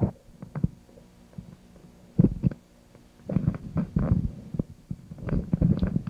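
Soft low thumps and knocks of movement and handling picked up by a home camcorder's built-in microphone, over a faint steady hum. The thumps are strongest about two seconds in and again around three and a half to four seconds. A click comes at the very start, where the recording cuts.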